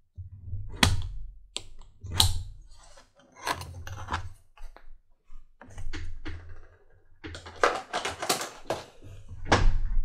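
Workbench handling noises: a series of separate knocks and clicks with short scrapes, bunched together about three-quarters of the way through, as tools and a strap-end template are picked up, moved and set down on the bench beside a leather belt strap.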